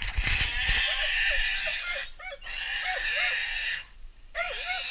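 An animal squealing over and over in short, high, rising-and-falling cries, with a steady high hiss behind them.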